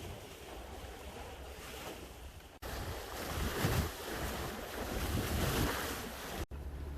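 Wind buffeting the microphone over the rush of waves washing past a sailboat's bow in rolling seas. The sound swells after a few seconds and cuts out abruptly twice.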